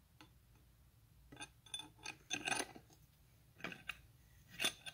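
Small steel pieces clinking and rattling against each other: a cut piece of thick nail and steel tools knocking together in a few short ringing clusters, the loudest a rattle about halfway through and a sharp clink near the end.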